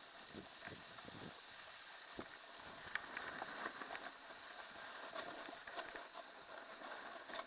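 Snowboard sliding over groomed snow: a faint scraping hiss with scattered light ticks and soft knocks, over a steady high-pitched whine.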